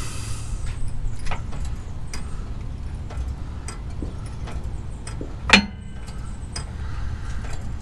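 Hydraulic floor jack being pumped to lift a Ford F-150's rear axle: a string of light metallic clicks about once a second, with one louder clank about two-thirds of the way through.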